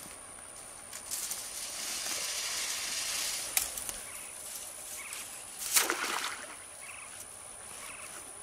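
Rustling of legs and gear pushing through tall grass, then past the middle a crawfish trap thrown into a shallow creek lands with one short splash.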